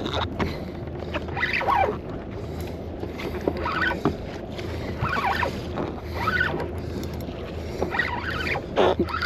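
Fishing boat's engine running steadily, with wind and water noise and brief scattered higher sounds over it.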